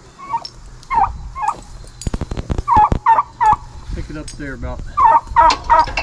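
Fowl calling in series of short, harsh repeated notes, two to five at a time. A quick run of sharp clicks sounds about two seconds in.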